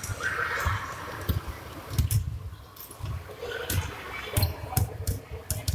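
Basketballs bouncing on a hardwood gym floor during a dribbling drill: irregular low thuds, several a second at times, echoing in the hall.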